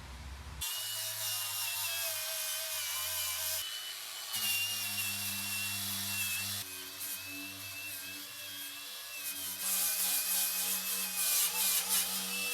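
A small power tool abrading rusty sheet metal, with a steady, slightly wavering motor whine and a scraping hiss. The sound shifts abruptly a few times where the work footage is cut.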